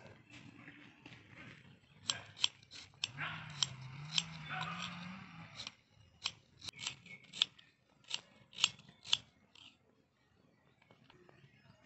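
Crisp cutting strokes of a large knife slicing through red onion, in quick runs of clicks with short pauses, stopping about ten seconds in. A low, wavering voice-like hum sounds briefly in the middle.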